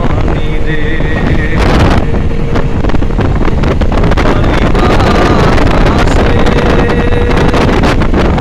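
Wind buffeting the microphone of a camera riding in a moving vehicle, over the steady rumble of the vehicle and its tyres on the road.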